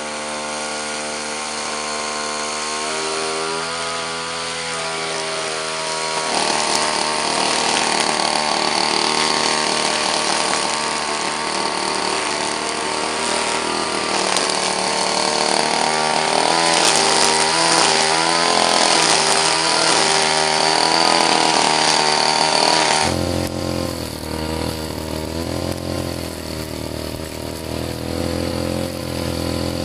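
Tanaka brush cutter's small two-stroke engine running at speed as its metal blade cuts grass and weeds, revving higher from about six seconds in. Near the end the sound switches abruptly to a closer, deeper engine note.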